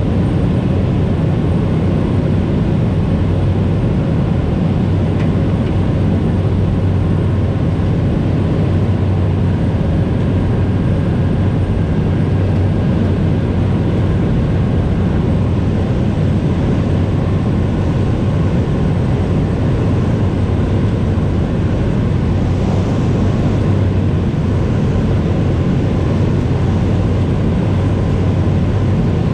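Cessna 208B Grand Caravan's single turboprop engine and propeller running with a steady, unbroken drone and a strong low hum.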